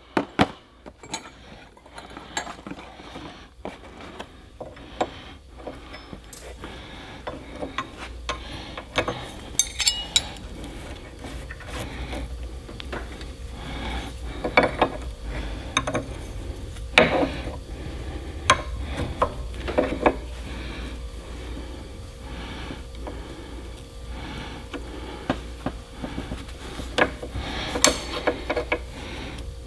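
Scattered metal clinks, taps and scraping as fittings are handled and threaded into a Caterpillar fuel transfer pump's cast housing clamped in a vise, over a steady low hum.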